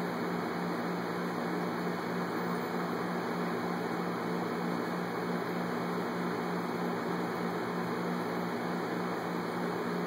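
A steady mechanical hum with an even hiss over it, unchanging throughout, with no crunches or splashes.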